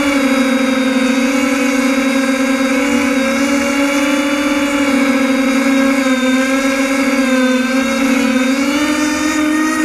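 Multirotor drone's electric motors and propellers running in flight, a steady buzzing whine whose pitch wavers slightly as the throttle changes.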